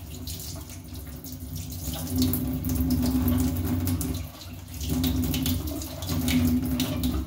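Kitchen tap running into a stainless-steel sink, the water splashing off a lemon as it is rubbed clean by hand under the stream; the splashing rises and falls as the hands move, dipping briefly about four seconds in.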